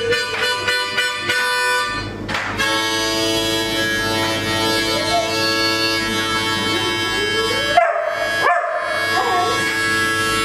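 Harmonica playing chords, short repeated puffs in the first two seconds and then long held chords, while a Dalmatian howls along in rising and falling wails from about halfway through.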